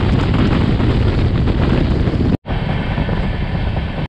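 Wind buffeting the microphone at the window or open door of a moving passenger train, over the train's running rumble. The noise breaks off for an instant about two and a half seconds in.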